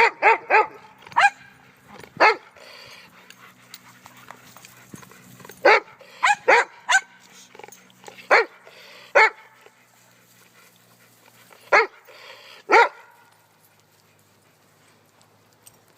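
Dogs barking: about a dozen short, loud barks in irregular bursts, some in quick runs of two or three. The barking stops about 13 seconds in.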